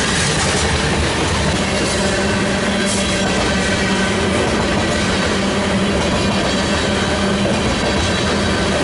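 Freight train of covered hopper cars rolling past: steady noise of steel wheels running on the rails.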